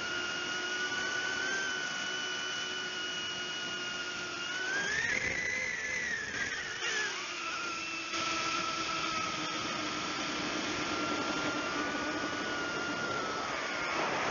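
Brushless motors and propellers of a 135 mm FPV quadcopter whining in flight, heard from on board. The pitch climbs as the throttle goes up about five seconds in, eases back down a couple of seconds later, and dips briefly near the end.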